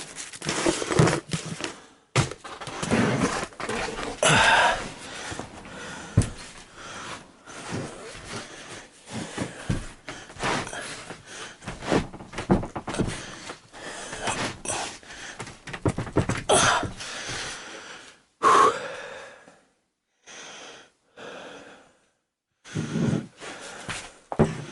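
Heavy, gasping breathing from exertion, mixed with irregular knocks and scrapes of particle board subfloor panels being worked into place. The sounds fall away to short gaps of silence in the last few seconds.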